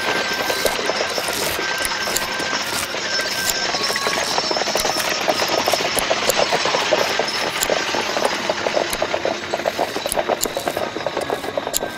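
A steady, fast mechanical rattle under a dense hiss, getting choppier near the end.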